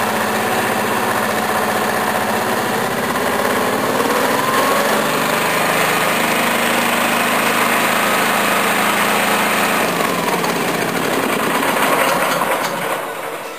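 Small single-cylinder OHV mower engine, the 13 hp Honda, running near idle. Its speed rises about four seconds in and falls back about ten seconds in. It idles properly only with the throttle held, which points the owner to the governor adjustment.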